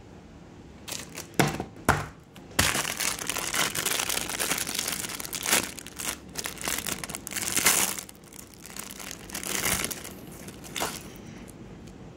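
Clear plastic wrapping crinkling and tearing as it is pulled off a roll of sticker tape. A couple of sharp snaps come first, then dense crinkling from about two and a half seconds in, with further bursts before it dies down near the end.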